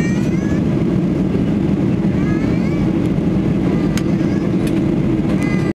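Steady roar of a Boeing 737-800's jet engines and airflow heard inside the passenger cabin during the climb after takeoff, with a few brief snatches of voices. The sound cuts off suddenly at the very end.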